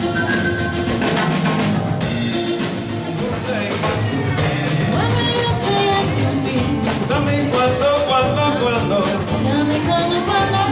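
Live dance band playing pop/rock with a drum kit, a singer coming in about four seconds in.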